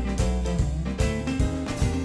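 Live band playing an instrumental break in a blues song, with drum kit hits on a steady beat over bass and guitar.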